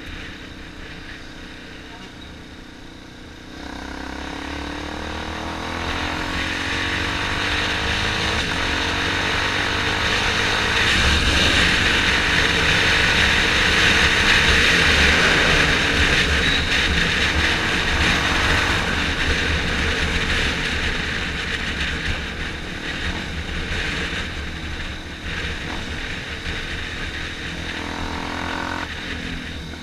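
Small motorcycle's engine running under way, its pitch rising as it accelerates about four seconds in, with wind rushing over the helmet-mounted microphone that grows louder with speed through the middle and eases near the end.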